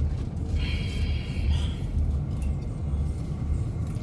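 Low steady rumble of a car's idling engine heard inside the cabin. From about half a second in, a brief high warbling tone lasts for just over a second.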